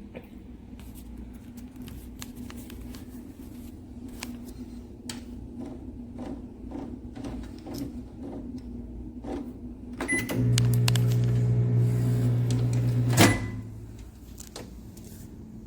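Galanz compact retro microwave oven: scattered clicks and taps, then a short beep and about three seconds of steady low hum as the oven runs, ending in a sharp loud click with a brief beep.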